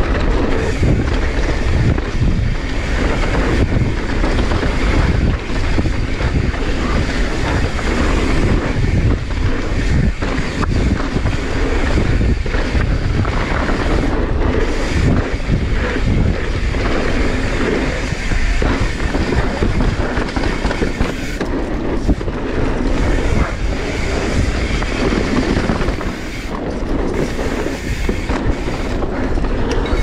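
Mountain bike descending a rough trail at speed: tyres rumbling over dirt and rocks, with the chain and bike rattling constantly. Wind buffets the microphone.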